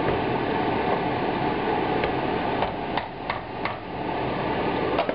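A spoon stirring and scraping a thick tomato-passata paste in a stainless steel pot, with several sharp knocks against the pot in the second half, over a steady hiss.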